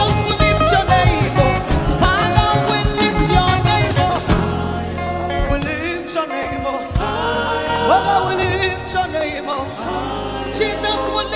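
Live gospel praise music: singing over a full band. About four seconds in, the drums drop out, leaving the voices over held low chords.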